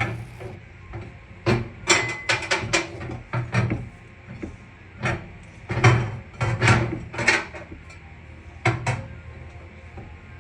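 Irregular knocks, clunks and short scrapes of a microwave oven being shoved and slid back on a countertop, in clusters about a second or two apart.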